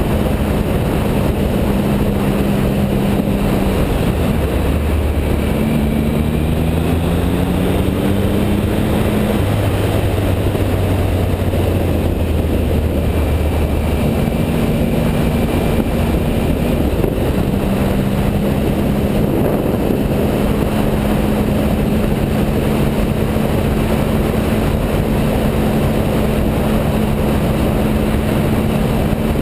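2011 Triumph Speed Triple's 1050 cc inline three-cylinder engine under way at cruising speed, its note rising as it accelerates several seconds in, dropping to a lower note for a few seconds, then holding steady. Heavy wind and road noise runs under it throughout.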